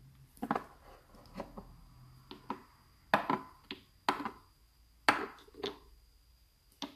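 Small nail polish bottles clicking and knocking against each other and the tabletop as they are searched through: about ten separate knocks at uneven intervals, some with a brief glassy ring.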